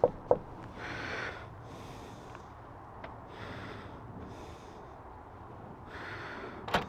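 A person breathing heavily near the microphone, about five slow breaths. One short sharp tap sounds just after the start.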